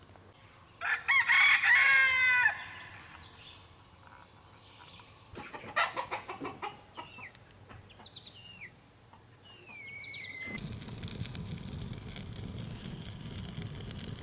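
A rooster crows once, loud, about a second in. Later come a few thin, falling peeps of young chicks among light clicks, and from about ten seconds in a steady noise with fine crackles from a burning campfire.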